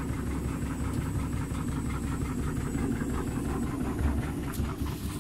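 Indesit front-loading washing machine running its spin with the drum full of suds: a steady low drone of the motor and turning drum with a thin high whine. Too much foam is holding the spin back, a suds lock.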